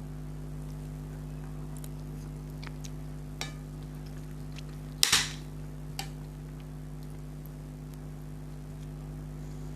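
Close-miked eating sounds: a few soft mouth clicks and one sharp, loud click about halfway through, over a steady electrical hum.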